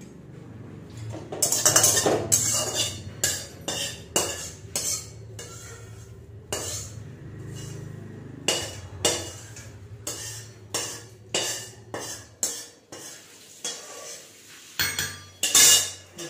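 Long steel spatula scraping and tapping against a steel kadai and a small steel bowl: a run of separate metallic clinks and scrapes, loudest about a second and a half in and again near the end, over a steady low hum.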